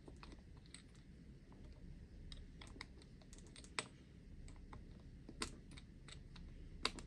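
Irregular small plastic and metal clicks and ticks as a wheel is pushed onto the hub of an HPI WR8 Flux RC rally car and its wheel nut is worked on with a small wrench, with three sharper clicks in the second half.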